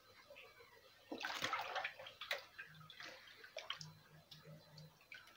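A catfish being washed by hand in a basin of salted water: splashing and sloshing, loudest about a second in, then lighter splashes and drips as the fish is lifted and rubbed to strip the slime from its body.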